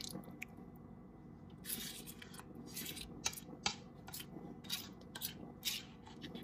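Faint, short scrapes of a kitchen utensil spreading a thick cheese and sour cream mixture over a layer of spaghetti in a baking pan. The scrapes come irregularly, starting about a second and a half in.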